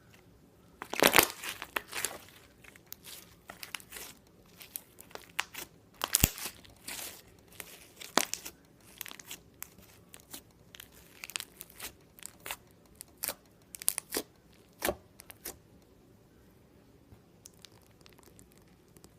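Slime being squeezed and stretched by hand, giving an irregular run of sharp crackles and pops, loudest near the start, that stops about three-quarters of the way through.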